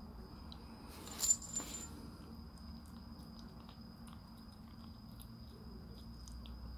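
Siamese kitten licking and chewing canned wet cat food from a ceramic dish, a run of small faint wet clicks. About a second in there is one brief, louder sharp noise with a short ringing note.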